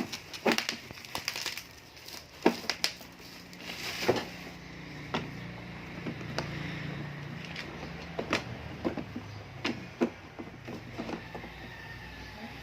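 Parcel packaging being handled and opened by hand: scattered sharp clicks and knocks with some crinkling.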